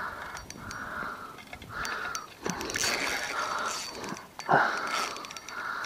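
Fishing reel being cranked in short repeated strokes with light clicking, under load from a hooked carp making runs.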